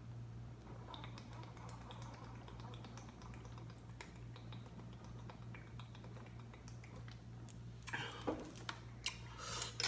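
Someone drinking from a large plastic water bottle: faint gulps and small clicks and crinkles of the plastic over a steady low hum, with a few louder sounds near the end as the bottle comes away from the mouth.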